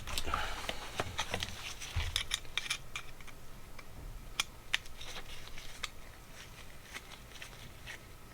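Light scraping and irregular small clicks of a hand tool working on a motorcycle carburetor's float bowl, busiest in the first few seconds and thinning out later, as dried old-fuel gunk is worked loose.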